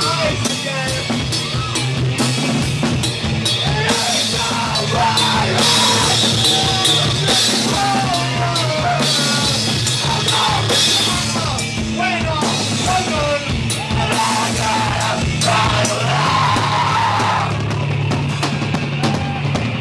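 Live rock band playing loud: distorted electric guitar, bass guitar and a drum kit with steady drum hits and crashing cymbals.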